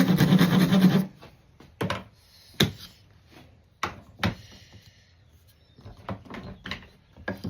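Wooden jig parts being handled: a second of rough scraping that stops about a second in, then several short wooden knocks as pieces are picked up and set down on the bench.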